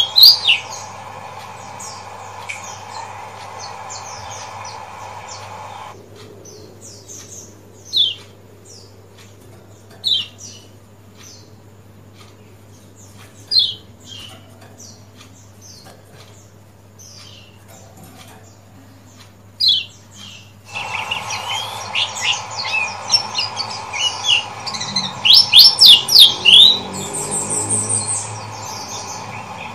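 Kecial kuning, a yellow white-eye, giving short sharp 'ciak' chirps: a few widely spaced calls for much of the time, then a quick loud run of calls near the end. A faint steady hum lies under it.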